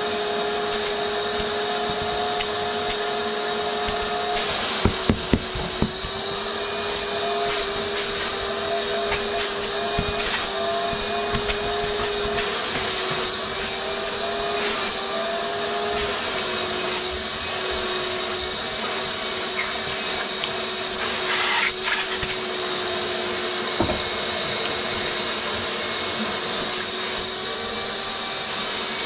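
Vacuum cleaner running steadily on van seats, its motor holding a steady whine over the rush of suction. A few sharp knocks come about five seconds in, a brief louder hiss of air about two-thirds of the way through, and one click shortly after.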